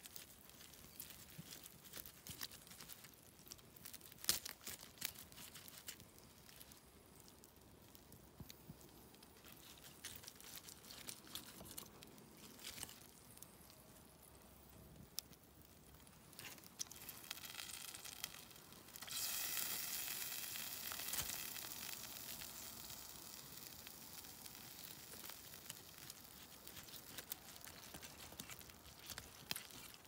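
Knife carving a roast pork joint and its crackling on a wire grill rack over a campfire: quiet tearing and scattered crackles and clicks. About two-thirds of the way through, a hiss starts sharply and slowly dies away.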